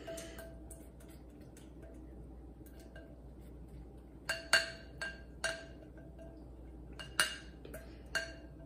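A spatula scraping a soft rice mixture out of a large glass mixing bowl, with sharp ringing clinks of the spatula knocking against the glass. The clinks come in a cluster about four to five and a half seconds in, and again a few times near the end.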